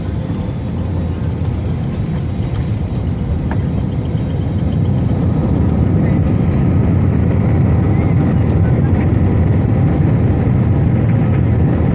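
Cabin noise of an Airbus A320neo rolling along the ground: a steady low engine and airflow noise that grows gradually louder.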